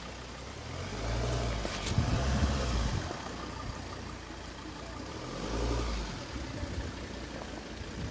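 Ford Endeavour SUV's engine rising and falling in several swells as it crawls over rough off-road ground, with a sharp knock about two seconds in.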